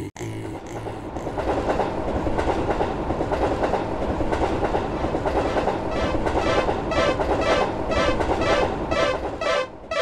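Cartoon train passing over the tracks with steady running noise. From about six seconds in, a railroad crossing alarm rings over it in a quick repeating pattern, about two strokes a second.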